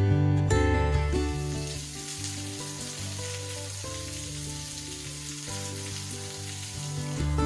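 Thin curtain of a low-flowing waterfall splattering down from a rock ledge, a steady high hiss. Acoustic guitar music plays under it and is louder in the first second and at the very end.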